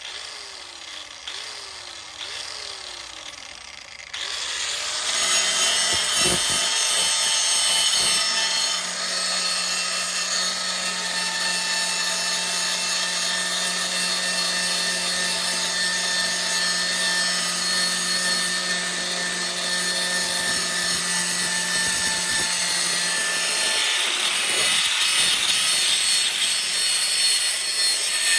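A power tool starts up about four seconds in and runs steadily, cutting through the GMC truck's rusted sheet-metal body.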